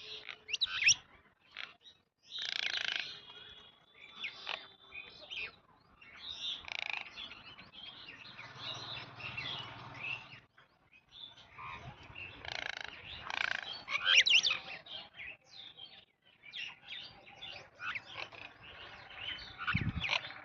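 Several small birds chirping and twittering in quick, overlapping calls, the sound dropping out abruptly a few times.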